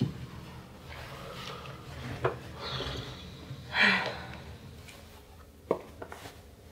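Bed sheets and pillows rustling as a person shifts and settles on a bed, with a few short soft knocks and a louder breathy rustle about four seconds in.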